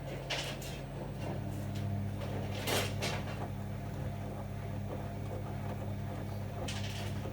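Bosch Avantixx 7 WAQ2849S front-loading washing machine in its wash phase: the drum motor hums steadily while water and laundry swish in the turning drum, with a louder swish about three seconds in.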